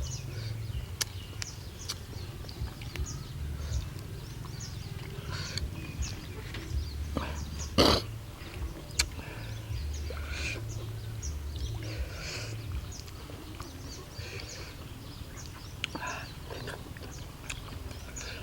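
A person eating noodles: wet slurping and chewing sounds in short irregular bursts, with one louder sharp slurp about eight seconds in, over a low steady hum.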